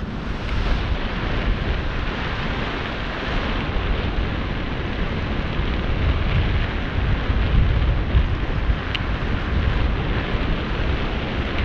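Steady wind buffeting the microphone, low and gusty, over the wash of sea water below.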